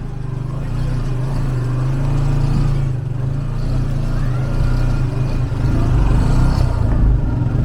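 TVS Apache 160 single-cylinder motorcycle engine running steadily while riding, getting a little louder near the end.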